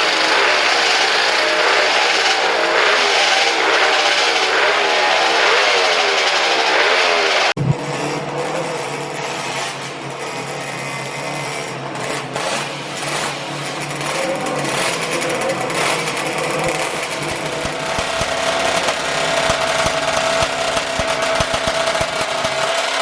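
Small motorcycle engines running and being revved, the pitch sweeping up and down quickly. About a third of the way in the sound cuts abruptly to another engine running more steadily and more quietly, its pitch climbing slowly near the end.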